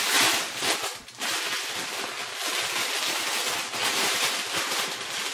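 Paper wrapping rustling and crinkling as a small packaged item is unwrapped by hand, with a brief lull about a second in.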